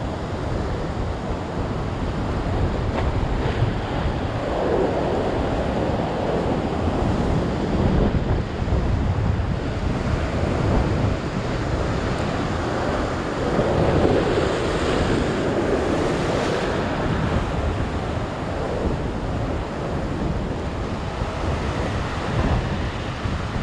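Ocean surf washing and foaming around a rock ledge, with wind buffeting the microphone. The wash swells louder twice, about five seconds in and again around fifteen seconds.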